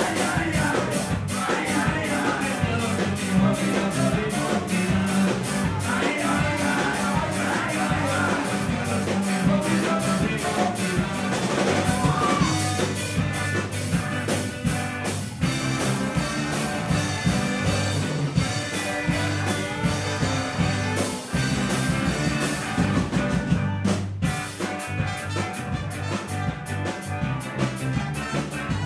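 Ska band playing live with saxophone, electric guitars, keyboard and drum kit to a steady beat, with a singer.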